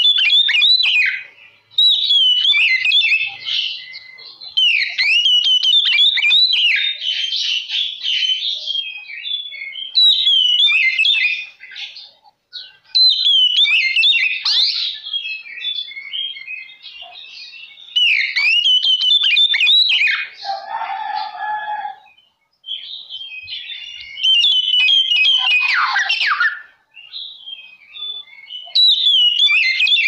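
Oriental magpie-robin (kacer) in full song: loud, varied phrases of sweeping whistles, quick trills and harsh notes, in bursts of a few seconds with short breaks. It includes a lower held note about two-thirds through and a long falling sweep soon after.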